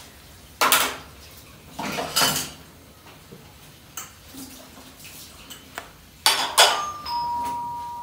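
Dishes and pots clattering in a few sharp bursts, then a doorbell chime sounding two steady, held tones near the end.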